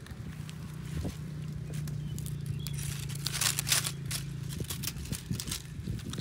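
Dry, dead palm fronds crackling and rustling as they are torn and pulled off the plant by hand, in irregular bursts that are loudest about three and a half seconds in.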